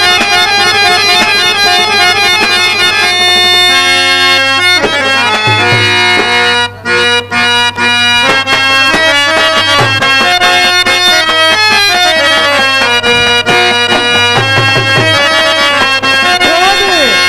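Harmonium playing a melody of long held reed notes, with a few low drum strokes now and then.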